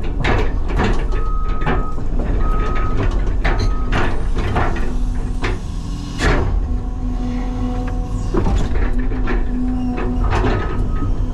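CAT 323 excavator running under load, its diesel engine rumbling steadily while the bucket knocks and scrapes against stone. A steady hydraulic whine joins about halfway through. A reversing alarm beeps on and off at the start and again near the end.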